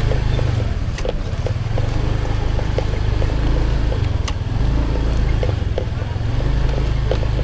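Steady low rumble of a road vehicle on the move, with a few sharp clicks.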